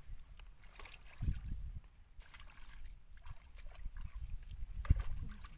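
Feet and hands moving through shallow muddy water: soft sloshing and splashing over an uneven low rumble, with a sharp thump about five seconds in.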